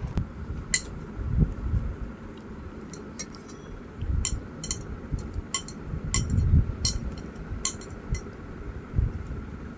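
A string of sharp, light clinks, about a dozen spread irregularly over several seconds, over low thumps and rumble.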